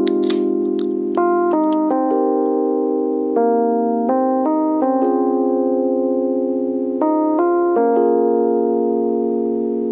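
Background music: sustained keyboard chords that change every second or two, with faint light ticks on top.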